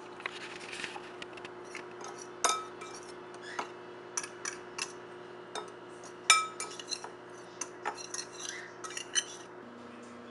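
Metal fork stirring flour and spices in a bowl: soft scraping with irregular clinks of the tines against the bowl, two of them louder and briefly ringing.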